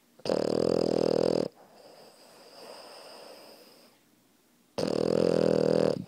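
A flat-faced French bulldog–Boston terrier cross puppy snoring loudly in his sleep. There are two long snores, each just over a second, with a pitched buzz: the first comes a fraction of a second in, the second near the end. A much quieter breath falls between them.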